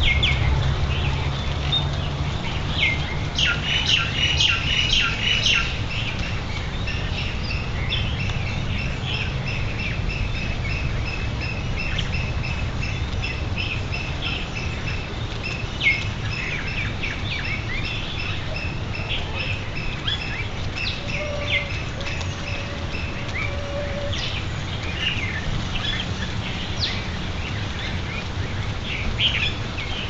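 Several wild birds calling and chirping, with a fast, evenly repeated series of high notes through the middle, over a low steady rumble.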